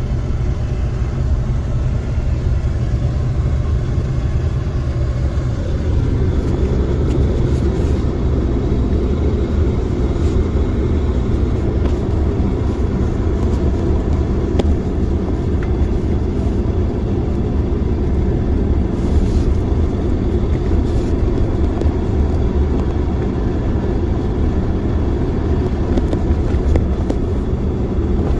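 Pickup truck (ute) driving, a steady loud rumble of engine and road noise without a break.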